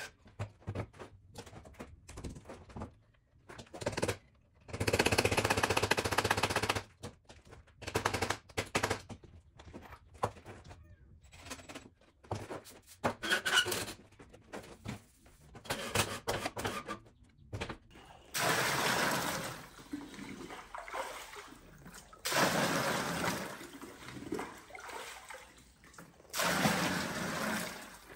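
Cordless drill run in short bursts, with knocks and clatter of handling. Then, from about eighteen seconds in, there are several splashing pours as water is scooped from a tank with a plastic jug and poured out.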